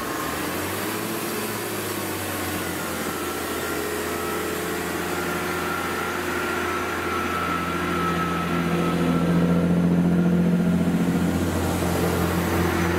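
Class 158 diesel multiple unit pulling away from a station platform, its underfloor diesel engines droning steadily with a thin whine above. It gets louder about two-thirds of the way through.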